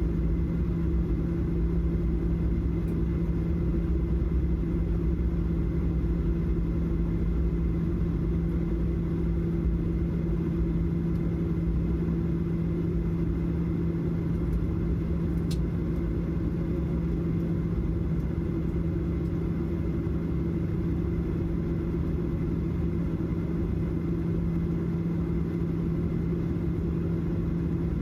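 Steady engine and airflow drone inside an Airbus A319 cabin, with a constant low hum over a deep rumble.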